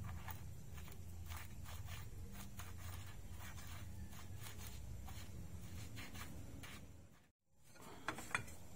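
Faint clicks and scrapes of steel rack-and-pinion steering parts being handled by hand, over a steady low hum. The sound cuts out briefly near the end, then come two sharper metallic clicks as a large adjustable wrench is set on the pinion nut.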